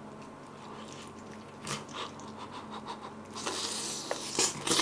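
Close-up mouth sounds of eating a japchae dumpling: quiet chewing with a few wet clicks, then from about three and a half seconds in a louder, hissing slurp as the glass noodles are sucked in.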